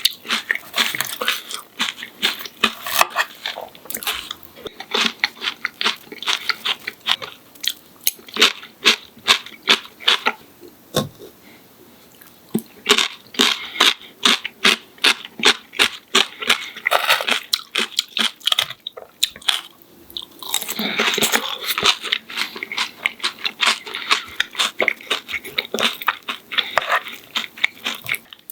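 Close-miked crunching and chewing of a breaded, deep-fried pork cutlet, many quick crunches with a short pause a little under halfway through.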